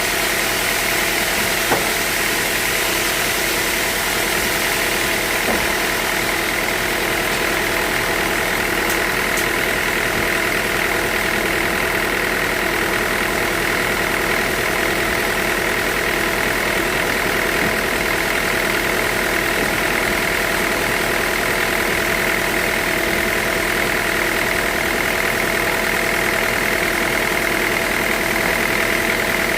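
Sawmill machinery running steadily: a continuous mechanical drone with several steady tones and a high whine, with one faint click about two seconds in.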